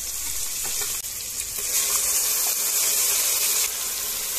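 Onions, tomato and spices sizzling in hot oil in an aluminium pressure cooker, stirred with a metal spatula, with the ground masala paste going in. The steady sizzle grows louder about two seconds in.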